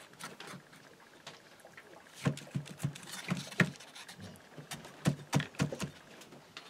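Metal spatula cutting through a baked pie crust and knocking and scraping against the foil pie pan, a quick run of short knocks and scrapes starting about two seconds in.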